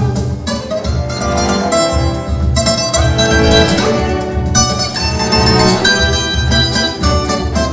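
Live instrumental music from a cello ensemble with a viola caipira: plucked string notes over sustained cello lines and a steady low pulse.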